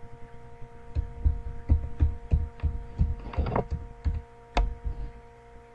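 Computer keyboard keys typed one by one, about ten keystrokes a few tenths of a second apart as a ten-digit number is entered, over a steady electrical hum.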